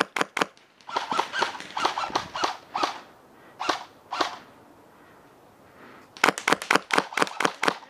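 Airsoft electric gun (AEG) firing strings of shots. The shots break off for about a second and a half just past the middle, then come in a fast run of about seven a second near the end.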